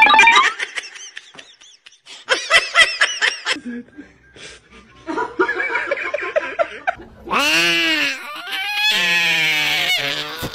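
Several bursts of people laughing, in quick ha-ha pulses of about four to five a second. Two longer, wavering vocal sounds follow in the last few seconds.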